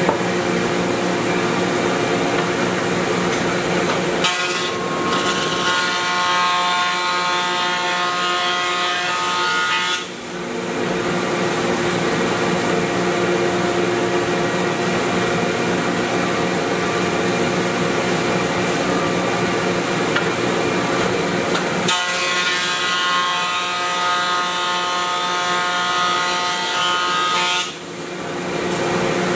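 Cast-iron thickness planer and its dust collector running steadily. Twice, for about six seconds each, an ash board passes through the planer's cutterhead, adding a higher whining cutting sound that stops abruptly as the board clears the machine.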